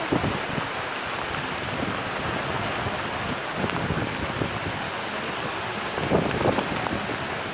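Small hail pellets falling on street pavement and asphalt, a steady pattering hiss, with a few louder knocks about six seconds in.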